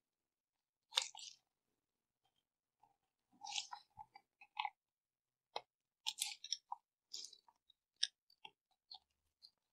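Faint, scattered scrapes and small metal clicks as a pointed tool levers and picks at an old, corroded CV boot clip on a VW drive shaft, with short quiet gaps between strokes.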